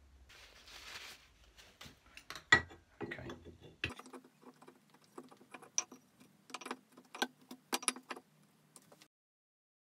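Cast-iron parts of a Stanley No. 8 jointer plane clicking and knocking together as the frog is handled and fitted onto the plane body. There is a short rubbing sound about a second in, a sharp knock a little later, and a run of small metal clicks in the second half. The sound stops abruptly near the end.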